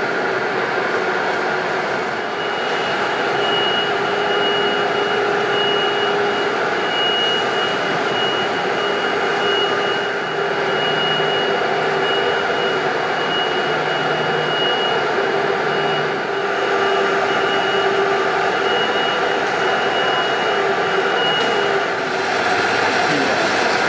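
Steady, loud machinery noise with a continuous high-pitched whine that starts about two seconds in and stops a couple of seconds before the end.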